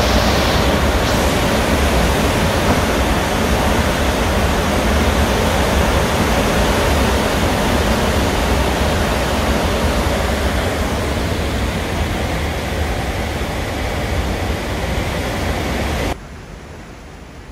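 Severe tropical cyclone wind and torrential rain lashing the building: a loud, steady rush of noise with a deep rumble underneath. It drops off suddenly to a quiet room background near the end.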